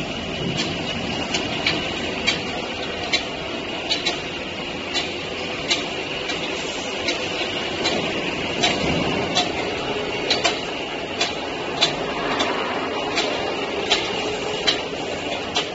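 Plastic sheet extrusion line for PP, PS, PET and PLA running: steady machine noise with a faint high whine, and sharp clicks at an even pace of a little more than one a second.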